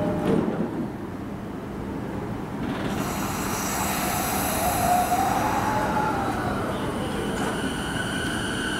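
E233-series electric train starting to pull away from the platform: a hiss comes on about three seconds in, then the inverter and traction motors whine in rising tones as it gathers speed.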